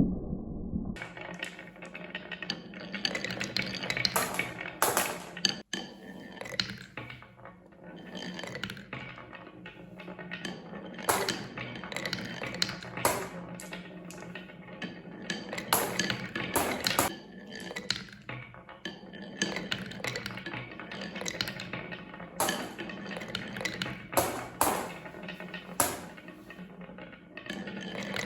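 Marbles rolling and clattering along a wooden marble run: a continuous rattle with frequent sharp clicks, starting about a second in.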